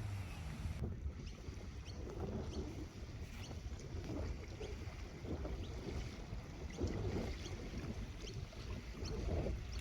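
Wind rumbling on the microphone, with water lapping and faint short high ticks scattered through.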